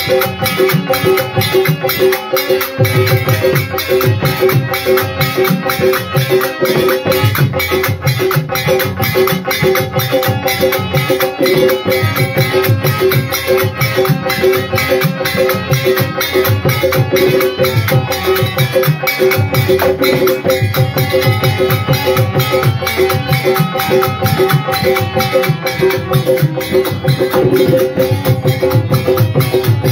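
Harmonium holding sustained notes over a fast, steady beat of hand percussion, in a Fiji qawwali ensemble.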